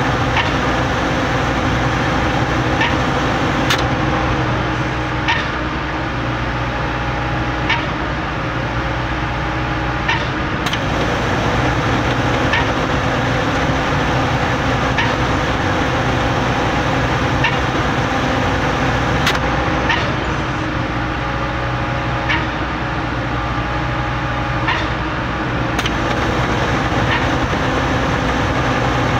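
Putzmeister trailer concrete pump running steadily while pumping, with a sharp knock about every two and a half seconds as the pump cycles its strokes.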